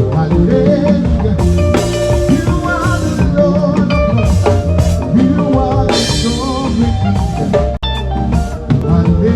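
Live band music with a drum kit and keyboard playing through a PA during a sound check, a wavering melody line over a steady bass. The sound cuts out for an instant late on.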